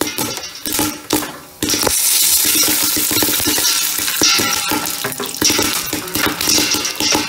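Popcorn kernels popping in hot oil in a pan, with sizzling: scattered sharp pops at first, then a dense, steady crackle of popping from about a second and a half in.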